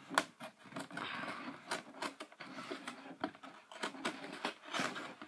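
X-Acto knife cutting along the taped seam of a cardboard box, a run of irregular scratches and clicks as the blade slices and catches.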